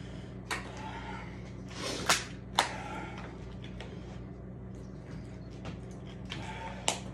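A man breathing hard after intense exercise. Over it come a few sharp crackles and clicks of a plastic water bottle being picked up, opened and drunk from, the loudest about two seconds in and again near the end. A steady low hum sits underneath.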